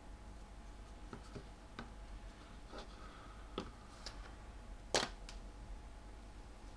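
Faint scattered clicks and taps of a small screwdriver and a 3D-printed plastic case being handled and set down on a cutting mat, the sharpest about five seconds in, over a low steady hum.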